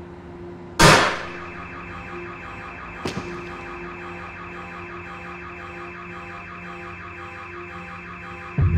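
A single loud gunshot about a second in, then a much fainter crack near three seconds, over a steady, rapidly pulsing electronic tone like a car alarm. A deep low sound swells in right at the end.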